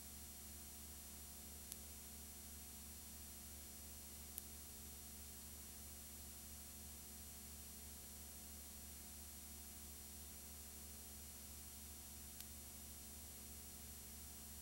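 Near silence: a steady low hum and hiss with three faint clicks, about two seconds in, past four seconds and near the end. No sound of the racing cars is heard.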